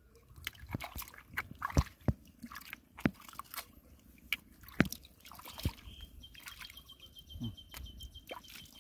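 Hands swishing freshwater mussels in shallow muddy water: small splashes and drips, with irregular sharp clicks as the shells knock together and against the fingers.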